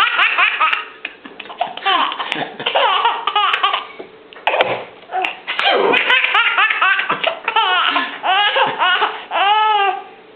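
A baby laughing hard in several bouts of quick repeated bursts, with short breathy pauses between bouts.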